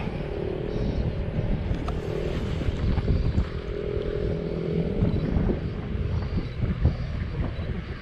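Wind buffeting an action camera's microphone in a gusty, fluttering rumble, with a faint steady engine drone in the background for roughly the first half.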